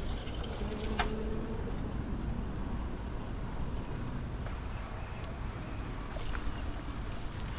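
Steady rush of wind and road noise on a moving rider's microphone, with a sharp click about a second in.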